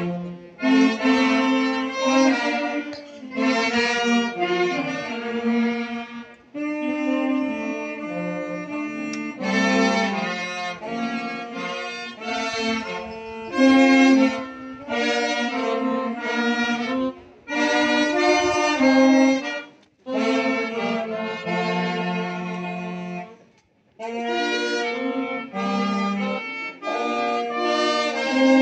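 Wind band of saxophones and brass playing, its phrases broken by a few short pauses.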